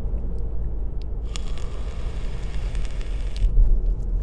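Car cabin noise while driving: a steady low road and engine rumble, with a rushing hiss that swells in about a second in and stops sharply about two seconds later.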